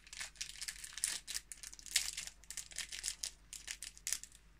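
Small plastic snack packet of rice crackers crinkling in the hands as it is worked and torn open, a run of quick crackles that dies away shortly before the end.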